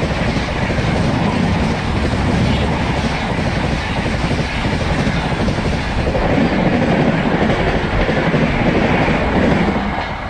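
Passenger coaches of an express train passing close by at 130 km/h: a loud, steady rush of wheels on rail and air with wheel clatter. It drops off about ten seconds in as the last coach goes by.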